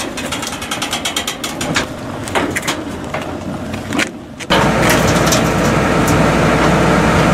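A run of irregular sharp metallic clicks and clanks while the crashed rally car is hauled up the recovery truck's ramp. About four and a half seconds in, a loud, steady drone of the recovery truck's engine running takes over.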